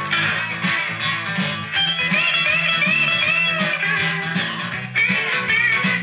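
Band music with electric guitar, played back from a vinyl single on a turntable, with a regular bass pulse and bending guitar notes from about two seconds in.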